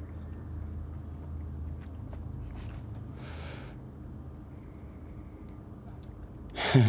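Disc golf tee shot: a few faint scuffs, then a brief whoosh about three and a half seconds in as the player swings and releases the disc. A steady low hum of outdoor ambience runs underneath.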